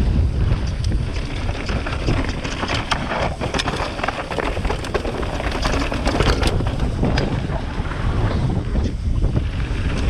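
Wind buffeting a helmet-mounted GoPro microphone as a mountain bike descends at speed, with the bike rattling and knocking over a rocky trail.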